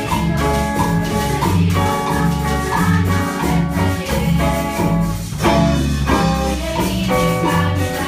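A school class ensemble playing a Latin pop song live: group singing and melodicas over a drum kit and hand drums, with a steady bass line underneath.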